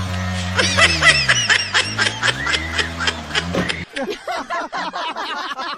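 People laughing and snickering in quick, repeated short bursts. A low steady hum lies underneath for the first few seconds and stops about four seconds in, leaving only the laughter.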